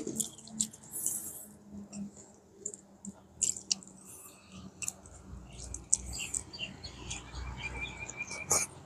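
Small clicks and soft wet smacks of eating by hand, fingers picking greens off a plate and a mouthful taken near the end, with a few faint bird chirps behind.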